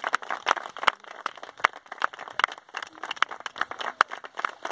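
Scattered applause: a small group of onlookers clapping unevenly, several sharp claps a second.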